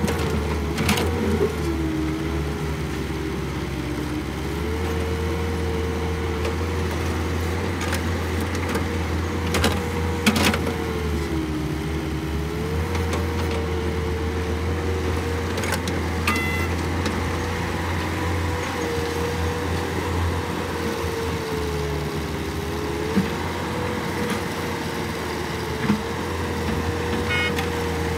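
Caterpillar tracked excavator's diesel engine running steadily under hydraulic load, with a low hum and a whine that dips in pitch several times as the arm and bucket work. A few sharp knocks stand out, two of them close together about ten seconds in.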